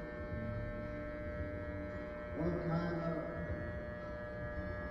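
Electric hair clippers buzzing steadily while cutting hair. A voice is heard briefly about halfway through.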